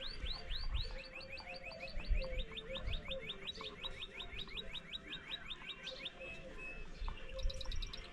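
Small birds chirping in a rapid run of quick rising notes, about five a second, that goes on through most of the stretch. A few low dull bumps are heard under it, the clearest about two seconds in.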